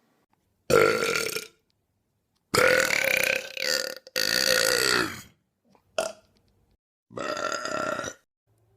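A string of loud human belches, about five, each cut off sharply with silence between them; the longest, about a second and a half, starts about two and a half seconds in, and one near six seconds is very short.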